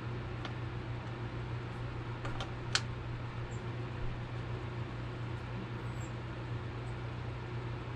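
Steady low room hum, with a few faint clicks of hands working the fuel lines and small plastic parts at the carburetor of a leaf blower; the sharpest click comes nearly three seconds in.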